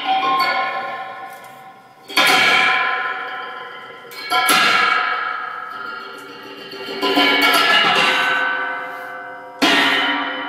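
Amplified electric guitar laid flat on a table and struck, giving bell-like metallic tones that ring out and fade slowly. Four such strikes come about two to three seconds apart, the third swelling in rather than starting sharply.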